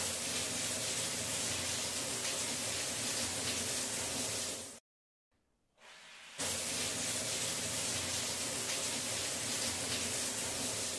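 Steady sizzling of egg and masala frying in a pan while being stirred, and later of shredded parotta stir-fried in it. The sound cuts out briefly about five seconds in, then returns.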